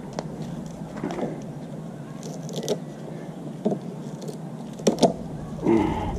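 Scattered sharp clicks and snaps of side cutters snipping zip ties and working at duct tape on a push mower's handle. The loudest pair comes about five seconds in, then a short louder sound just before the end.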